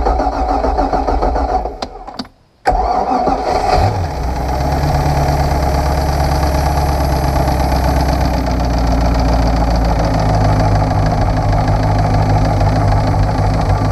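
Ski boat's throttle-body-injected inboard engine being cranked: the first try stops after about two seconds, the second starts again a moment later and catches about four seconds in, then runs steadily at idle. It is being run to fill the newly fitted fuel-water separator filter bowl and check it for leaks.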